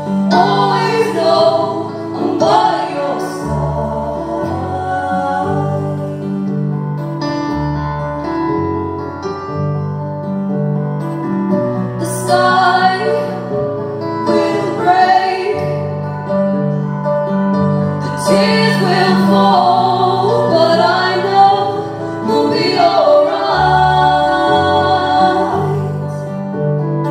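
Live music from a female duo: a steady instrumental chord progression with the low notes changing about once a second, and female voices singing wordless lines over it at times.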